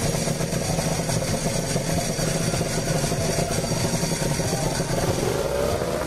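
Honda NSR250R two-stroke V-twin running through T2R expansion chambers and a full-carbon silencer, held at steady raised revs for a sound-level reading. Near the end the revs climb.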